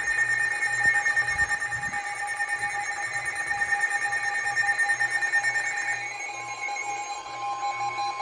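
Emergency alert attention tone from a radio receiver, a steady electronic alarm that comes before a severe thunderstorm warning. A second, slightly higher steady tone joins about six seconds in.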